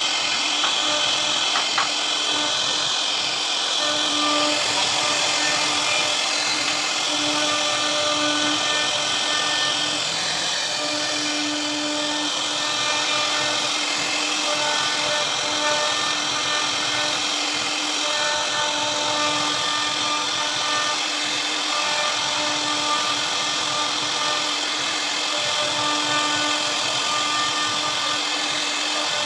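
CNC router spindle running with its bit carving a relief pattern into a wooden door panel. The sound is a steady high hiss, with short tones that come and go every second or so as the head moves.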